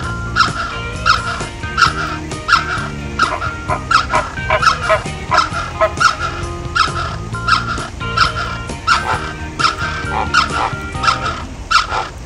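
Flock of greater flamingos honking: a continuous run of short, repeated honks, about two a second, from many birds at once, over a low steady drone.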